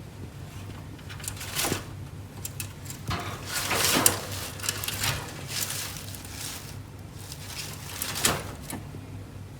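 Netherland Dwarf rabbit making a series of short, irregular snorts through its nose, the longest and loudest about four seconds in; the owner wonders whether it is being territorial.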